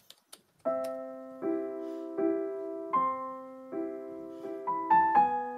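Slow background piano music: soft chords, each left to fade, with a new one about every three-quarters of a second, starting just under a second in.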